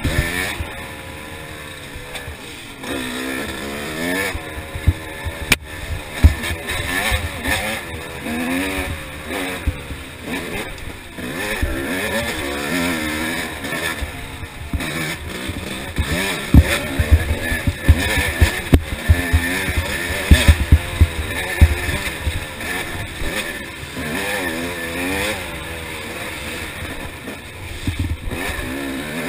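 Yamaha YZ250 single-cylinder two-stroke dirt bike engine revving up and down hard as it is ridden flat out along a rough dirt trail, the pitch climbing and dropping over and over. Frequent low thumps from bumps and wind buffeting on the helmet microphone.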